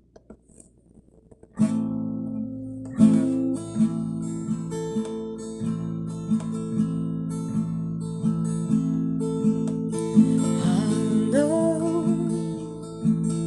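Acoustic guitar strummed in steady chords as a song's introduction, starting about a second and a half in after a few small clicks.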